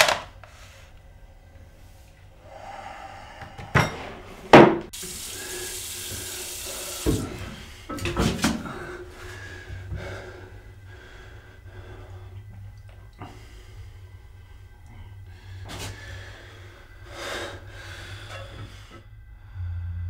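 A telephone handset is set down with a sharp clack. Later, after a couple of loud knocks, a tap runs into a sink for about two seconds, followed by more knocks and splashes.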